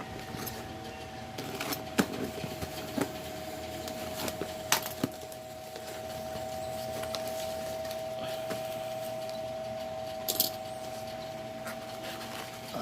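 A small cardboard shipping package being handled and opened: scattered clicks, taps and rustles, over a steady high hum.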